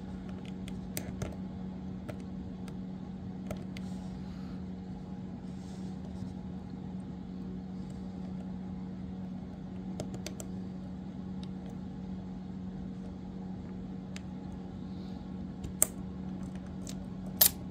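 Small scattered clicks and taps of a metal tool working on a die-cast toy car while its wheels and axles are pried out. Two sharper clicks come near the end. A steady low hum runs underneath.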